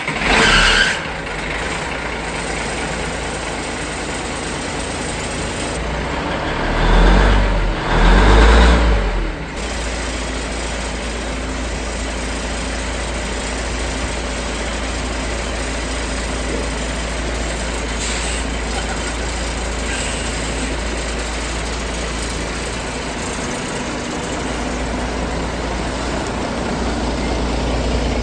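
1973 Ward LaFrance fire engine's engine starting and catching at once. It is revved twice a few seconds later, then settles into a steady idle with a deep low rumble.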